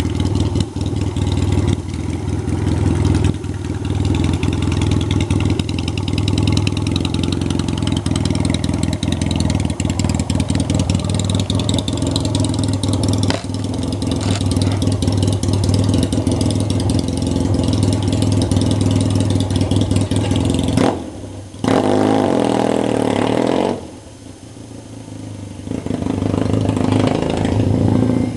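Yamaha XS650 chopper's parallel-twin engine running with a steady low beat. About two-thirds of the way through the sound breaks off briefly and then runs quieter for a couple of seconds, before building back up near the end.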